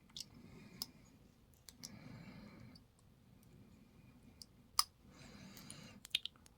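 Scattered small, sharp clicks from padlock parts and picking tools being handled while the lock is disassembled, with a quick cluster of clicks near the end.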